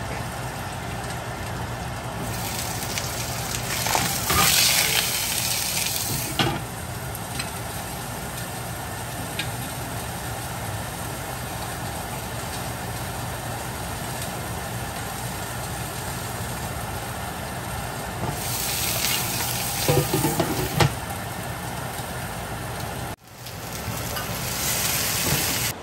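A whole fish shallow-frying in oil in a lidded pan, browning its skin before braising: a steady sizzle with louder spells of spattering and a few sharp pops. Near the end the lid is off and scallions and ginger have gone in, and the sizzle is louder.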